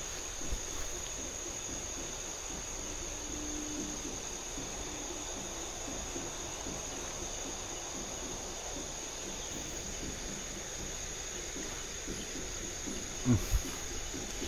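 Steady high-pitched chorus of night insects in a forest, running without a break; two short thumps near the end.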